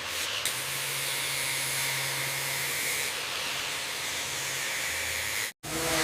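Steady hissing spray from a high-pressure jet cleaning rusted metal. It cuts off abruptly near the end and gives way to a sound with steady tones.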